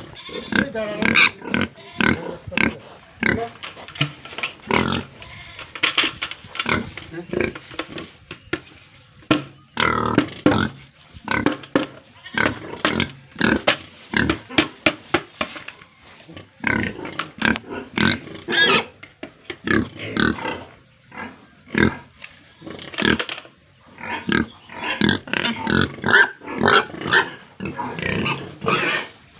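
A group of pigs grunting and squealing in many short calls one after another, with several shriller squeals near the end.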